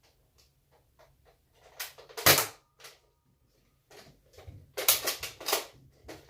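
Plastic clicks and clatter of a toy Nerf blaster being handled, with light ticks throughout. There is a short loud burst about two seconds in and a tighter run of louder clacks around five seconds in.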